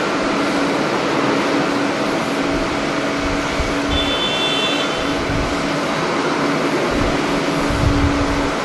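Steady jet airliner engine noise with a constant low hum, mixed with gusts of wind buffeting the microphone in irregular low rumbles.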